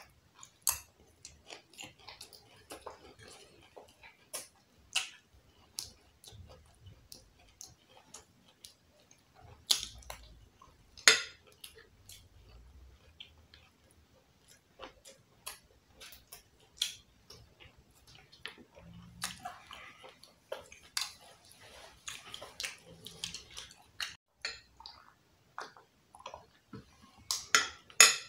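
Close-up eating sounds: chewing and wet mouth noises of jollof rice with fried plantain, broken by irregular sharp clicks and taps of cutlery against the glass dish.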